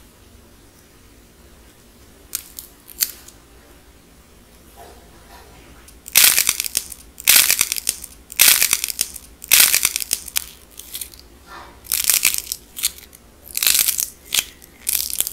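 A dried white clay shell being squeezed and cracked apart by hand: two small clicks, then from about six seconds in a series of loud crunching cracks, roughly one a second, as the hardened surface breaks up.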